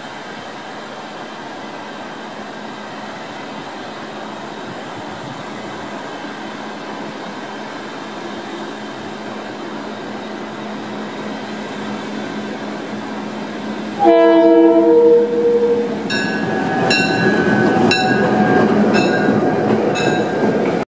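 A diesel locomotive approaching and passing, its engine and wheels growing steadily louder. About two-thirds through it sounds one horn blast of about a second. Then its bell rings about once a second as it goes by.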